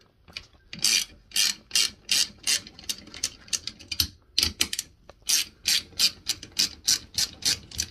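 Ratcheting wrench clicking as it turns the bolts holding a ceiling fan's mounting bracket, the bolts being loosened. Short ratchet clicks come about three a second, with a brief pause about four seconds in.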